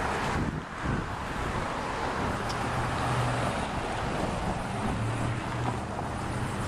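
Steady outdoor background noise, a broad hiss of wind and traffic, with a low hum that swells twice in the second half.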